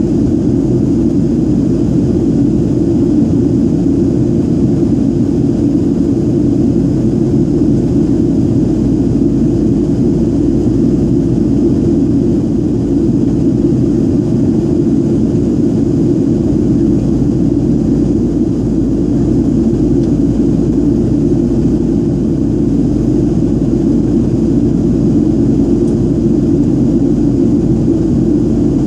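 Boeing 737-700 cabin noise on approach: its CFM56-7B jet engines and the rush of airflow heard from inside the cabin as a steady, dense rumble that does not change.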